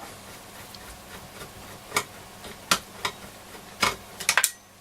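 Scattered sharp clicks and taps, with a quick cluster near the end, as a screwdriver works a small machine screw out of a transistor radio's chassis.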